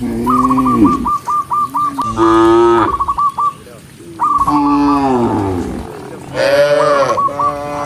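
Cattle mooing: four long, loud moos in turn, likely from different cows. Quick, high, repeated chirps run between and under the moos.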